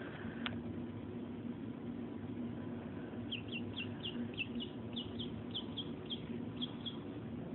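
Mallard duckling peeping: a run of short, high, falling peeps, about four a second, starting about three seconds in, over a steady low hum.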